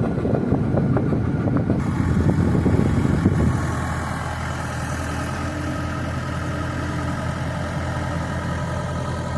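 Pickup truck with a 6.2-litre V8 running, heard from inside the cab: a rough, uneven rumble for the first few seconds, then a steadier, even engine hum from about three and a half seconds in.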